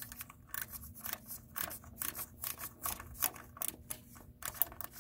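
Hand ratchet clicking in irregular runs as its flex-head swings back and forth to back off the rusty 13 mm nut that holds the starter's ground cable.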